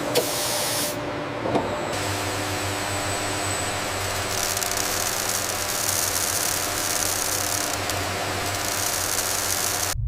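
Machinery running steadily with a low hum and several held tones, two sharp clicks early in the first two seconds, and a high hiss joining about four seconds in.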